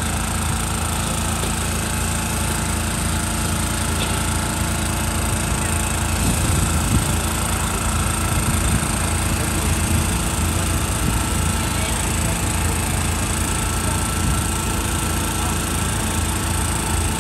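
Steady low motor drone under the hiss of a wok stir-frying flat rice noodles over a charcoal stove, with a few faint voices.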